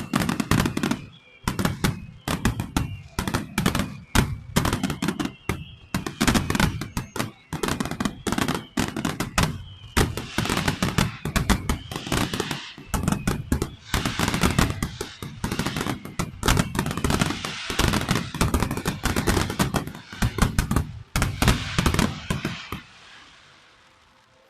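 Fireworks display: a rapid, dense barrage of sharp bangs from bursting aerial shells, which dies away into a fading crackle near the end.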